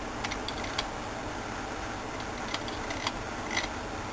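A handful of soft, scattered clicks from a computer mouse over a steady background hiss.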